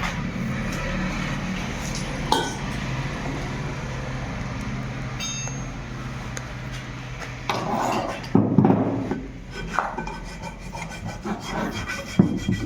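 Rubbing and scraping during hand repair work, in rough bursts about halfway through, with a sharp knock or click near the start and another near the end, over a low steady hum.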